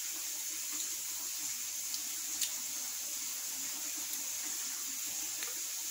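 Kitchen sink tap left running, a steady rush of water into the sink, with a light tick about two and a half seconds in.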